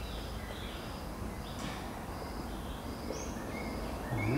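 Small birds chirping, short high calls every second or so, over a steady low background hum.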